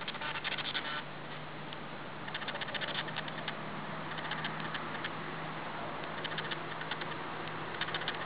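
Faint ticking from a short in a double-insulated galvanized electric fence wire, arcing in rhythm with the pulses of a Parmak Mark 8 fence energizer. It comes as short runs of sharp clicks every second or two, over a steady low hum.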